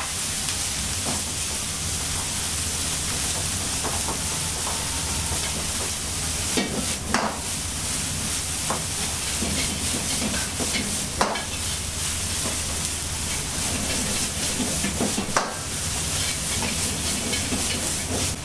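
Vegetables sizzling in a wok over a high gas flame while a metal ladle stirs them, the ladle knocking sharply against the wok a handful of times at uneven intervals. A steady low hum runs underneath.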